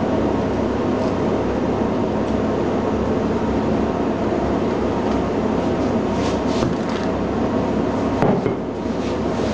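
Steady, loud mechanical rumble of running machinery. A few light knocks come near the end as a wooden rolling pin is pressed along the metal tray's edge to trim the pastry.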